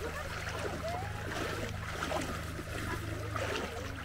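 Shallow seawater sloshing and trickling around wading legs, with a steady low hum underneath.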